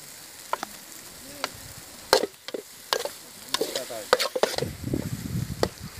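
Metal slotted spoon stirring a thick egg masala in an aluminium pot, scraping and knocking against the pot's side about ten times, over a low sizzle.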